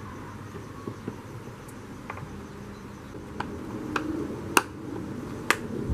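Hand tools and bolts clicking and clinking as a motorcycle's air filter housing is unbolted, a few scattered sharp clicks with the two loudest near the end.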